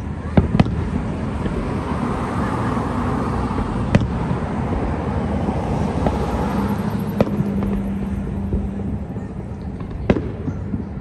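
Aerial fireworks shells bursting: about five sharp bangs spaced a few seconds apart, over steady outdoor background noise.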